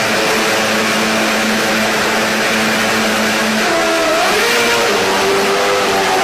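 Lotus Formula 1 racing car's engine running at high revs. It holds a steady note for about three and a half seconds, then its pitch dips and climbs as it revs.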